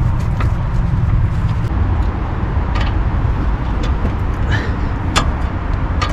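A few short metallic clicks and taps from hand tools working on a car's front suspension, over a steady low rumble.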